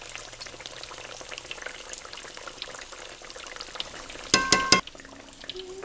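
Battered green tomato slices frying in hot oil in a cast-iron skillet: a steady sizzle. A little past halfway, a metal utensil clinks two or three times with a short ring.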